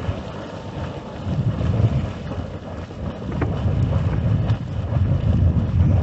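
Wind buffeting the microphone in gusts, heavier in the second half, over a steady hiss of Pump Geyser's boiling, splashing hot-spring vent.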